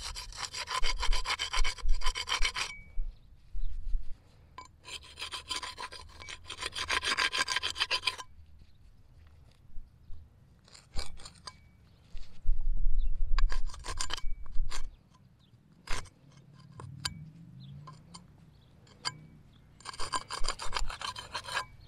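A digging tool scraping and rasping through soil to unearth an iron target. It comes in several bursts of a few seconds each, with short clicks between them.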